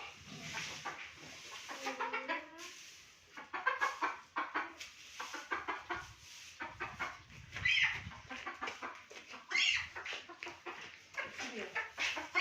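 Domestic fowl clucking and calling in a coop, with short bird calls scattered through and many short knocks and scrapes.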